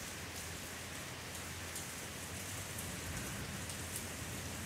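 Heavy downpour of rain falling steadily, with scattered close drops spattering sharply.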